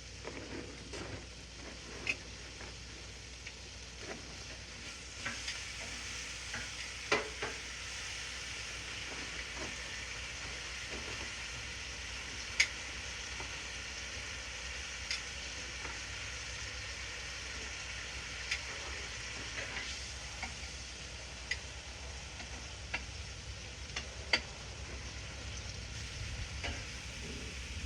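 Ribeye steaks frying in butter on a Blackstone flat-top griddle: a steady sizzling hiss, with sharp ticks and pops every second or two.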